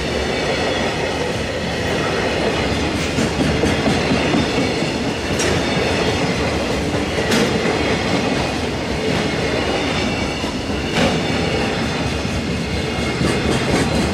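Freight train's container flat wagons rolling past: a steady, loud rumble of steel wheels on rail with clickety-clack at the rail joints and a few sharp clanks.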